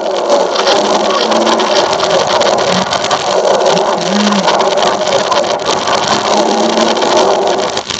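Cartoon sound effects played in reverse: a loud, continuous, dense noisy clatter full of small clicks, with a few brief low tones.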